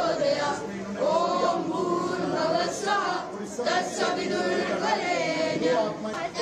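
A group of schoolchildren singing a prayer together.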